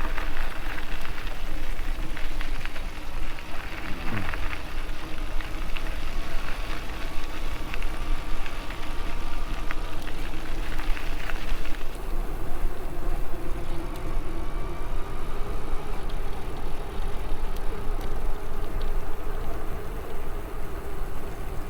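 Steady rumble and hiss of riding an e-bike, with a faint whine that drifts slowly up and down in pitch and a short falling tone about four seconds in.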